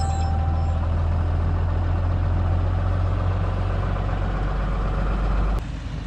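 Pickup truck's engine idling steadily just after being started, heard from inside the cab, cutting off suddenly near the end.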